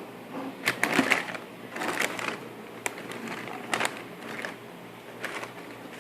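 Irregular rustling and short clicks and taps, like paper and cardboard being handled, as a new pair of sneakers is unboxed.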